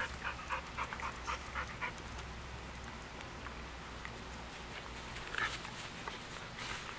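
A dog panting quickly, about four breaths a second, dying away after about two seconds.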